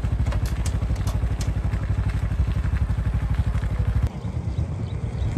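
Small motorcycle engine running as it is ridden along a dirt road, with a steady, even firing pulse. About four seconds in the engine note drops and gets quieter, as if the throttle is eased off.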